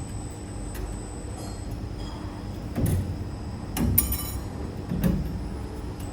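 CNC wire forming machine working 4.7 mm steel wire: a steady motor hum with a constant high whine, and three clanks about a second apart as the tooling bends and punches the wire.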